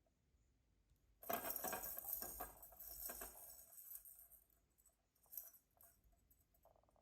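A light, jingling metallic rattle for about two seconds, starting a second in, followed by a few scattered clicks.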